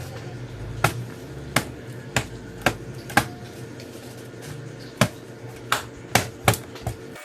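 About ten sharp clicks and knocks, spaced unevenly, over a faint steady hum.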